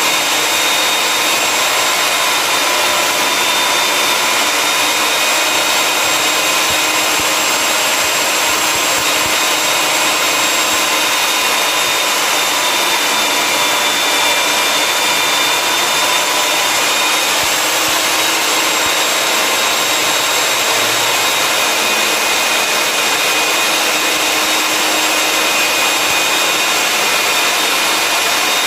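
Electric diamond core drill on a rig stand running steadily, its water-fed core bit cutting down into the floor: a constant motor whine over a grinding hiss.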